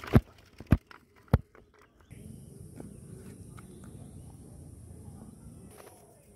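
Three sharp knocks about half a second apart as the homemade fishing-line spool with plastic flanges is handled, then a steady high hiss with soft low rustling.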